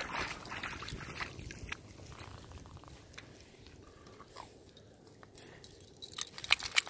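Wet long-haired dog splashing as it wades out of shallow water, then quieter with a few small clicks; near the end it shakes itself off, a fast, regular run of flapping, spattering sounds.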